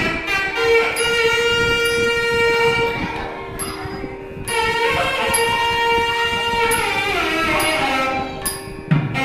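Nadaswaram playing raga Ramapriya in long held notes with sliding ornaments, over a steady drone. Thavil drum strokes come in at the very end.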